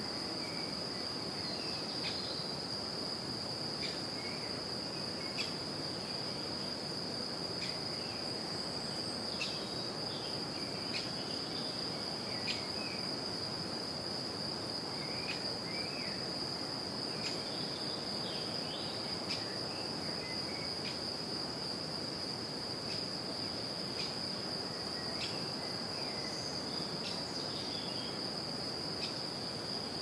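A steady, high-pitched insect trill, with scattered short bird chirps every second or so over a soft even hiss.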